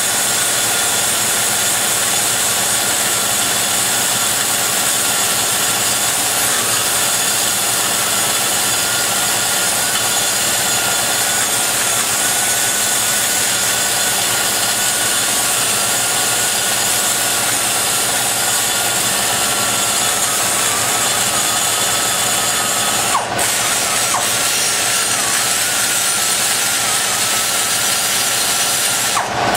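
Die grinder with a rotary burr cutting metal inside a cylinder head's exhaust port, running steadily with a high whine over a hiss. It is rough-shaping the roof and sides of the port. The tool briefly eases off twice near the end.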